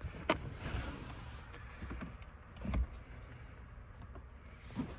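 A few light clicks and knocks from handling the truck's dash console trim and its wiring connectors. The loudest is a dull knock a little past the middle, with a sharp click just after the start and a smaller knock near the end.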